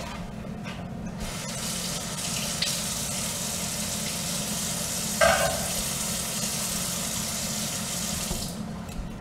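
Kitchen sink tap turned on about a second in, water running steadily into the sink, then shut off near the end. A brief louder sound stands out about five seconds in.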